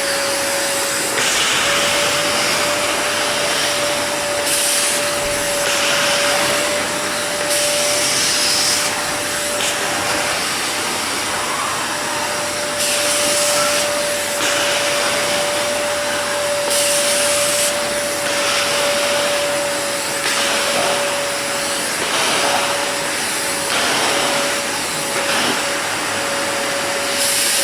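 Kärcher wet/dry vacuum cleaner running with a steady motor whine over the rush of suction, the suction noise brightening for a second or two every few seconds. It is switched off at the end, the motor winding down in a falling whine.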